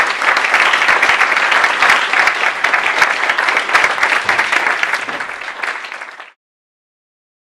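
Audience applause, many people clapping at once; it thins out and then cuts off suddenly about six seconds in.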